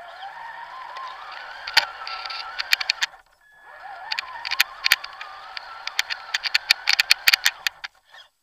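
Onboard sound of a Traxxas TRX-4 RC crawler driving: the electric motor and gearbox whine, rising in pitch as it speeds up, then holding steady. It drives, pauses briefly about three seconds in, then drives again and stops near the end. Many sharp clicks and knocks come from the chassis and tyres going over sticks and leaves.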